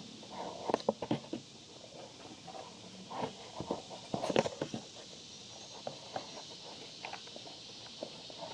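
Irregular knocks, clicks and scuffs of someone moving about and handling things, bunched about a second in and again around four seconds in.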